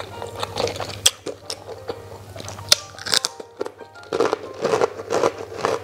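Crisp emping (melinjo nut crackers) crunching as they are bitten and chewed by mouth, a run of sharp crunches that come thickest about four seconds in, over background ragtime music.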